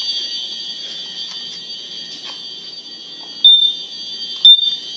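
Smoke alarms sounding a steady, high-pitched shrill. Near the end, a nearby smoke alarm gives two loud, short beeps about a second apart instead of sounding continuously, a sign that it is misbehaving.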